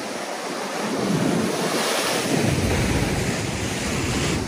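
Ocean swell breaking and washing over a sea-rock ledge, growing louder about a second in, with wind buffeting the microphone.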